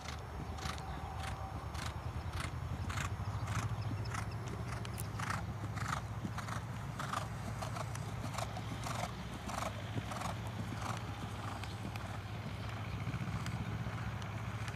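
Hoofbeats of a ridden grey mare moving on a sand arena, a regular beat of about three strikes a second, over a steady low rumble.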